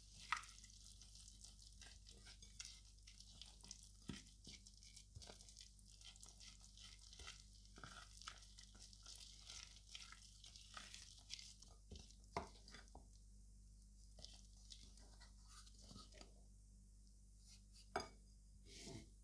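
A wooden spoon stirring thick, sticky muffin batter in a glass bowl: faint, irregular scraping and squelching, with the spoon knocking against the glass now and then, most sharply just after the start and again near the end.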